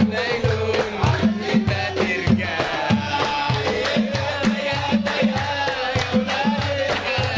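Simsimiyya folk music: the plucked lyre with a hand drum keeping a steady beat of about three strokes a second.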